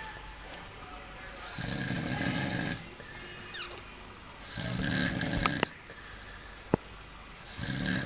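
A man snoring in his sleep: rough, rasping snores about every three seconds, two full ones and a third starting near the end, with a few brief sharp clicks between them.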